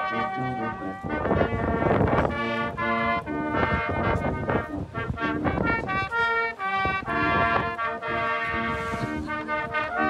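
A small brass band of cornets, a euphonium and a tuba playing a tune together in harmony, the notes changing every half second or so.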